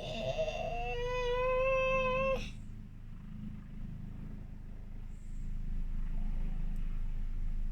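A long, high-pitched drawn-out call lasting about two seconds, held on one near-level note, then a steady low rumble.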